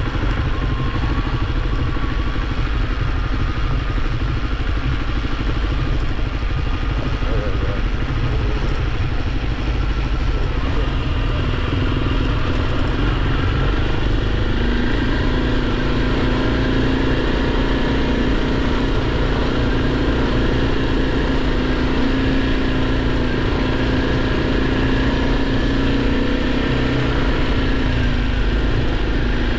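Kawasaki KLX300's single-cylinder four-stroke engine running steadily while the bike rides along a dirt road. The engine note shifts in pitch in the first third, then holds steady and a little louder.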